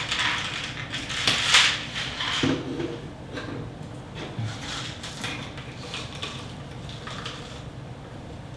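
Knocks and clatter from rummaging in upper kitchen cabinets: several sharp knocks in the first three seconds, then lighter scattered taps.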